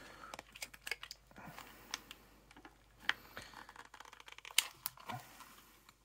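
Fingers picking and pulling at a cardboard-and-plastic blister pack, giving faint scattered clicks and crinkles, the sharpest about three seconds in and again near five seconds. The perforated card does not give way to fingers alone.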